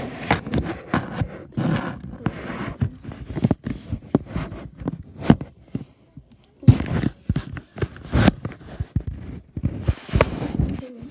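Handling noise from an iPad held close: a run of sharp knocks, bumps and rubbing on the tablet's body and microphone as it is gripped and moved about.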